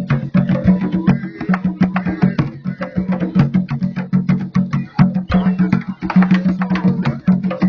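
Candombe drumming: several hand drums struck with hands and sticks in a fast, dense, continuous rhythm.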